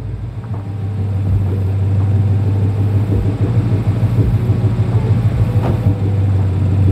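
A Ford Mustang GT's 5.0 V8 running steadily at idle with a low rumble, growing a little louder over the first second or two.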